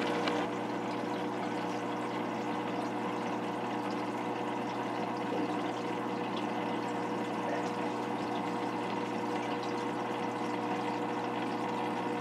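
Aquarium filter running: a steady wash of moving water with a low, even hum.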